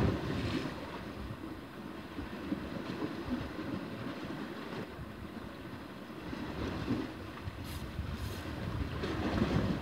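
Wind buffeting the microphone over small sea waves lapping against rocks, with a couple of short hisses about eight seconds in.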